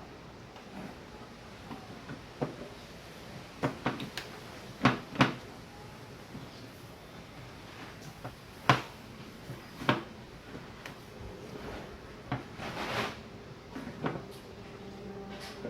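Scattered sharp knocks and clicks of parts and tools being handled, a dozen or so irregular taps, the loudest pair about five seconds in, with a brief rustle about thirteen seconds in.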